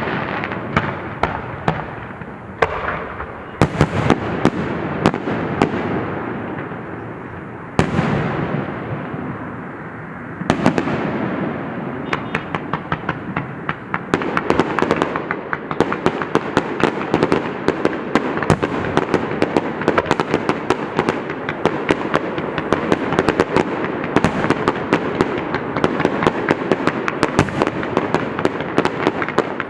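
Fireworks going off without pause: a dense crackle of many small reports, broken by sharper bangs about 4, 8 and 10 seconds in. From about halfway the crackle becomes almost continuous and rapid.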